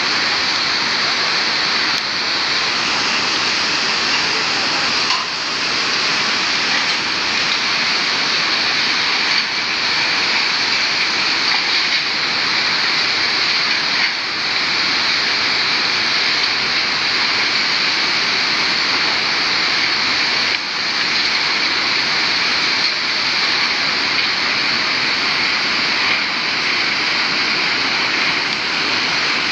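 River water rushing steadily past, a loud, unbroken rush of fast-flowing water.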